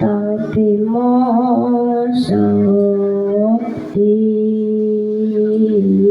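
A voice singing long held notes of a Javanese sung verse, with a slight waver in the pitch. It moves to a new note about two seconds in and again about four seconds in.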